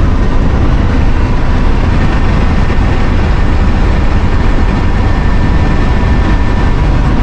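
Cab noise inside a 1989 Winnebago motorhome on the road: its Chevy P30 chassis's 7.4 L 454 big-block V8 running under way, mixed with road and wind noise, loud and steady.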